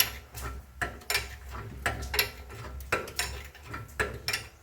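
Shop press being worked: a regular series of sharp metallic clicks and knocks, about two to three a second, over a low steady hum, as it pushes an old rear control-arm bushing down flush with the arm.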